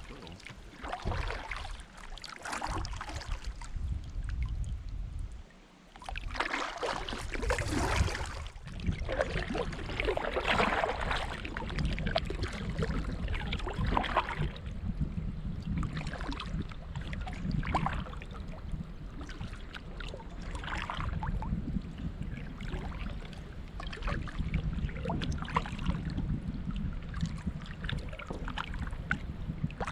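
Kayak paddle dipping and pulling through the river water, a splash every two seconds or so, over a steady low rumble.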